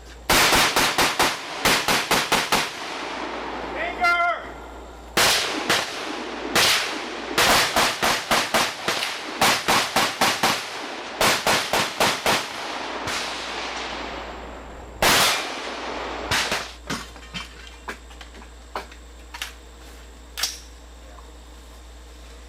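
Rapid strings of 5.56 AR-15 rifle shots, several a second, broken by short pauses. A single loud shot comes about fifteen seconds in, followed by fainter, spaced shots.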